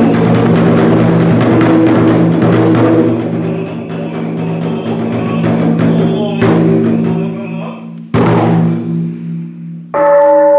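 A temple taiko drum beaten in rapid strokes that thin out into two single heavy strikes, each dying away. Near the end a large bronze bowl bell is struck and rings with a clear, sustained tone.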